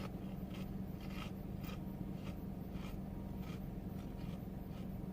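Chips being chewed: short soft crunches, just under two a second, over a steady low hum.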